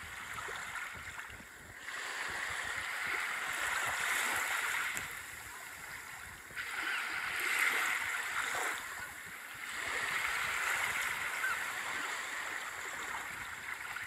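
Sea surf breaking and washing up a sandy beach, the rush swelling and falling in surges every few seconds.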